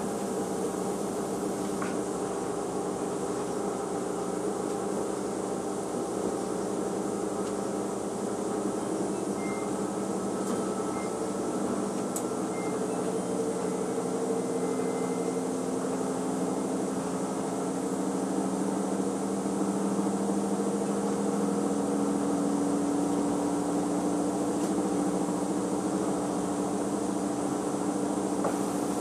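Front-loading washing machine running: a steady motor hum made of several tones, one of which slowly rises in pitch from about halfway through as the drum speeds up, growing a little louder toward the end.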